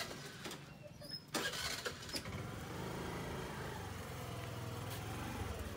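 A motor vehicle's engine running close by, its pitch rising and then falling over a few seconds, after a single knock about a second in.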